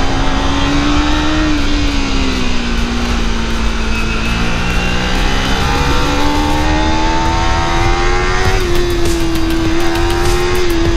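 Motorcycle engine running under way. Its pitch sags about two seconds in and climbs again from about six seconds as the throttle changes, over a steady low rumble of wind.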